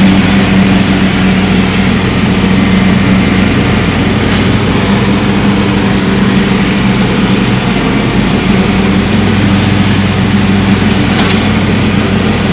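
Riding lawn mower engine running steadily at full throttle with the mower blades engaged, a loud, even hum.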